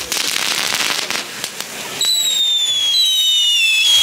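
Nico Vulcano F1 firework fountain burning with a hissing, crackling spray of sparks amid other small fireworks. About halfway through, whistling fireworks start up: two overlapping whistles that slowly drop in pitch.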